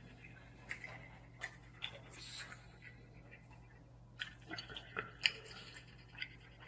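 Quiet eating sounds of a man chewing spicy instant noodles: soft chewing and breathing, with a few small scattered clicks and smacks, over a faint steady hum.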